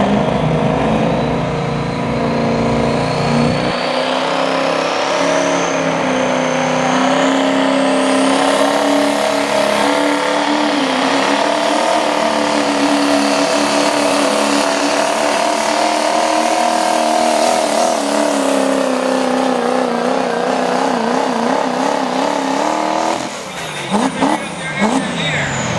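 Turbo diesel pickup pulling a weighted sled at full throttle: a steady, heavy engine note with a high turbo whistle that climbs in pitch over the first several seconds. About 23 s in the engine comes off throttle and a loudspeaker announcer's voice takes over.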